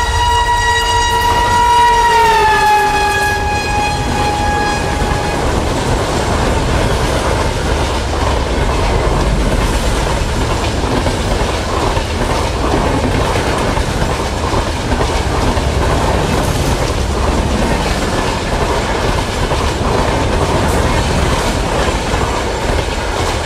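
Horn of twin WDM3D ALCo diesel locomotives sounding one long blast that drops in pitch about two to three seconds in as they pass, fading out by about five seconds. The express train then runs past at speed with a steady rushing noise and low rumble.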